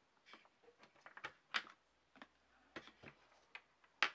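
Irregular light clicks and taps, about a dozen, as small hardware is handled in a clear plastic parts organizer; the sharpest click comes near the end.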